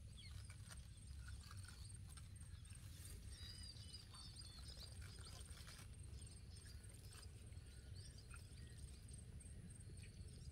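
Faint outdoor ambience: scattered short bird chirps and a steady high insect trill over a low rumble.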